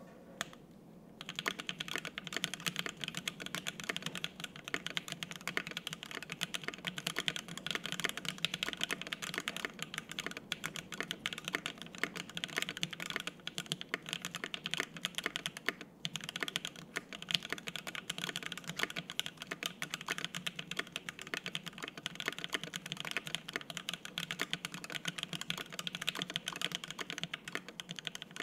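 Fast continuous typing on a Devastating TKL mechanical keyboard with stock, factory-lubed Everglide Water King 62 g linear switches on an FR-4 plate and GMK double-shot ABS keycaps. It starts about a second and a half in, with a brief pause about halfway through.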